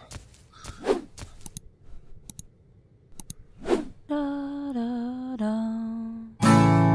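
End-screen music jingle. A few soft clicks and swishes come first, then three held notes, each a step lower. Near the end a strummed acoustic guitar chord comes in, the loudest thing here, and rings on.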